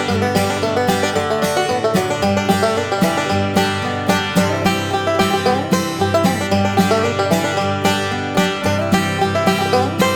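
Background music: up-tempo bluegrass-style tune with rapid plucked banjo-like notes.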